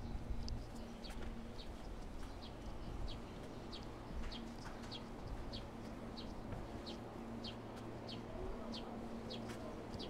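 Bird chirping: a short high chirp that drops in pitch, repeated steadily about twice a second, over a low steady hum.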